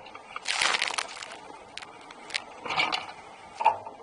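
Water splashing and spraying against the hull of a Laser Fun sailing dinghy moving fast, in irregular splashes: a longer one about half a second in, then several shorter ones.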